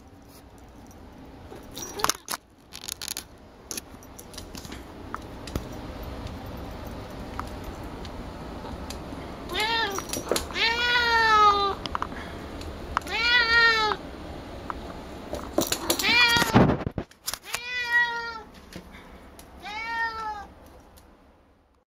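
Domestic cat meowing insistently in a run of about six drawn-out calls through the second half, demanding a ball of her own brushed-out hair that is held out of her reach. Soft rustling and a few knocks come before the calls, with a louder knock among them.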